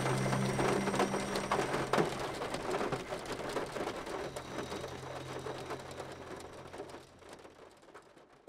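Rain falling, a dense crackle of many small drops over a low steady hum. The hum drops out about a second and a half in and returns around four seconds in. The whole sound fades away toward the end.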